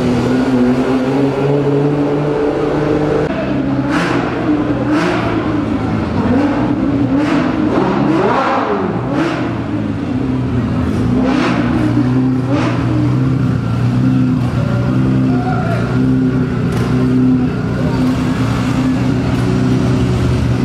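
Tuned Nissan GT-R's twin-turbo V6 running loud at low speed, with a string of short throttle blips and sharp cracks through the middle stretch.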